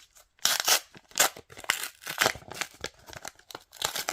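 A trading card pack wrapper being torn open and crinkled by hand, a quick run of irregular rips and rustles.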